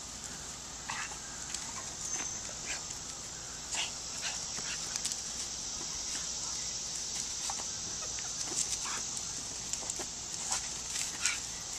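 Dogs on leashes greeting and playing, with occasional faint short whines over a steady outdoor hiss.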